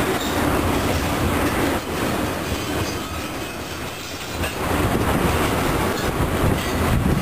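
Freight train of tank cars rolling past at speed: a steady rumble of steel wheels on the rails with a clickety-clack as the trucks pass over the rail joints.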